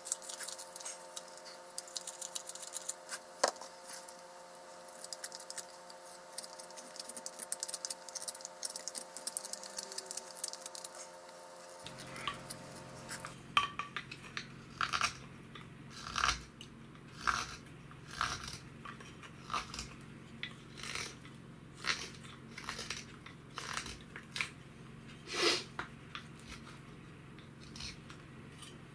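Green wood being hand-carved into a spoon. A hook knife scrapes quick small cuts inside the bowl, then about halfway through a straight carving knife whittles the handle in separate slicing cuts, about one a second.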